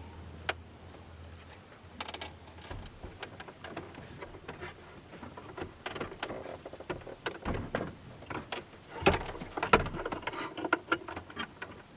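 Scattered plastic clicks, knocks and rustling as a 2002 Chevrolet Silverado instrument cluster is handled and pushed onto its wiring connector in the dash, with a few sharper clicks toward the end.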